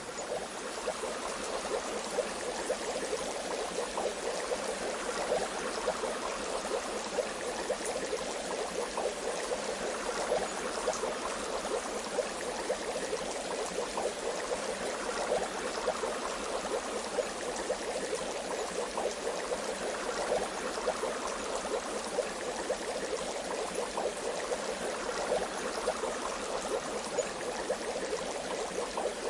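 Bath water bubbling steadily: a dense, unbroken run of many small bubble pops, strongest in the middle of the pitch range.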